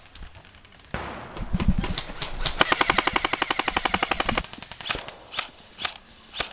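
Airsoft electric gun firing a full-auto burst of about two seconds, a fast, even rattle of shots, followed by a few single shots. A short rushing noise with a low thump comes just before the burst.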